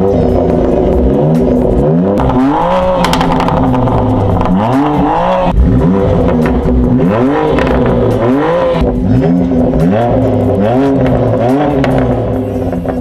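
BMW M2 Competition's 3.0-litre S55 twin-turbo straight-six, fitted with a Remus axle-back exhaust, revved from idle in a series of short throttle blips about a second apart.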